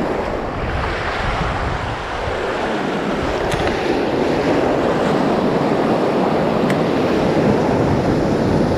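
Sea waves washing and breaking against shore rocks, a steady rushing noise, with wind buffeting the microphone. Two faint ticks, about three and a half and near seven seconds in.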